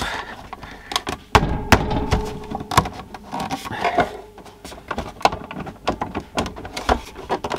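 Plastic case of a small portable CRT television being forced apart by hand: a run of clicks, knocks and creaks as the case halves are pulled against a hidden clip, with two sharper knocks a little under two seconds in.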